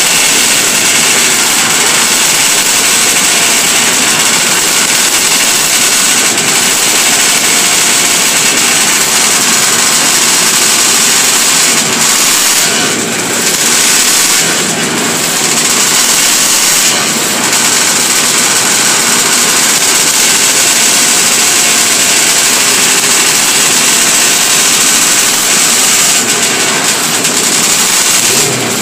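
Several 500cc two-stroke racing motorcycles running together on the start grid, revved in a loud, continuous blare that briefly drops a few times.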